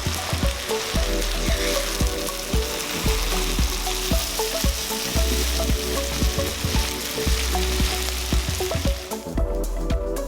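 Mushrooms and onions sizzling in oil in a hot pan as they are stir-fried to caramelize. The sizzle drops away about nine seconds in.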